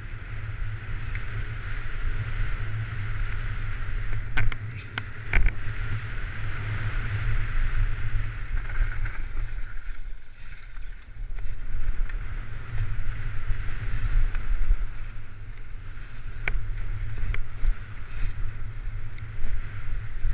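Continuous rushing noise and low drone of a camera riding fast along a rough forest dirt trail, with sharp knocks from the ground a few times: three close together about four to five seconds in, and two more near the three-quarter mark.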